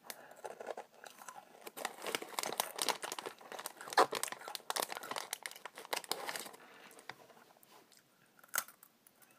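Close-up crunching and chewing of a crisp Koala's March cocoa biscuit, mixed with crinkling of the plastic snack bag. One sharp crack comes about four seconds in, and the crunching dies down over the last few seconds.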